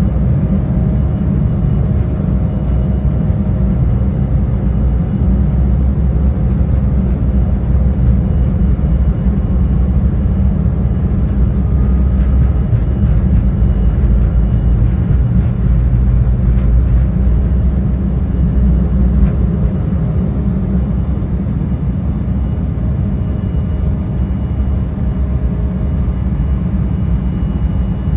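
Cabin noise of an Embraer E175 at takeoff power: a loud, steady low rumble from its CF34 turbofan engines and the airflow, with faint steady whine tones above it.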